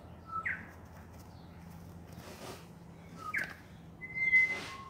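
Birds calling in the background: two short sweeping whistled notes a few seconds apart, then a held whistle near the end. A brief rustling noise comes just before the end and is the loudest sound.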